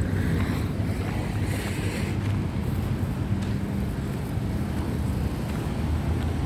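Steady low rumble of a vehicle in motion, with wind buffeting the microphone.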